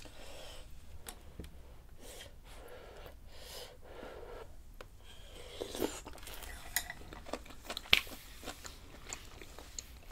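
Close-miked eating of dumpling rice cake soup: wet slurping and chewing of dumplings and rice cakes. Wooden spoon and chopsticks clack against the stone bowl, the sharpest click about eight seconds in.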